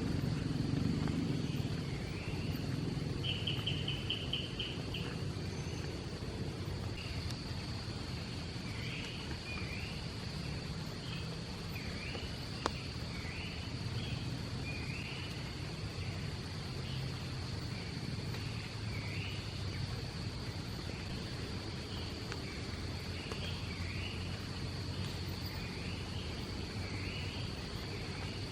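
Forest ambience: a steady high insect drone, with short bird chirps repeating throughout and a brief fast trill near the start, over a steady low rush.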